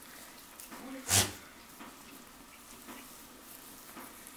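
Goat kids moving about in straw bedding, with faint rustles and small clicks; about a second in, one short, loud, noisy sound from a kid.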